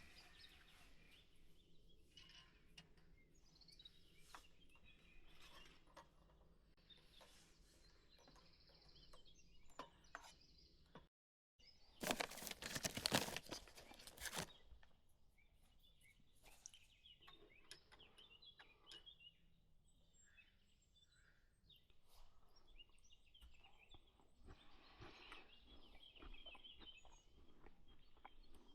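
Faint outdoor ambience of small animal calls, frogs or birds, with scattered light clicks. About eleven seconds in, the sound cuts out completely for a moment. It is followed by a loud rustling noise lasting about three seconds, then the faint calls return.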